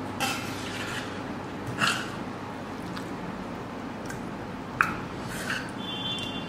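A metal spoon scooping gravy from a stainless steel pan, giving a few light clinks and scrapes of metal on metal, the sharpest about five seconds in.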